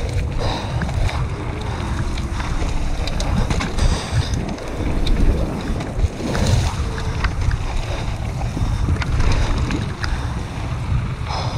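Wind buffeting an action camera's microphone during a fast mountain-bike descent on a dirt trail, with a steady rumble of tyres over dirt and frequent sharp rattles and clicks from the bike.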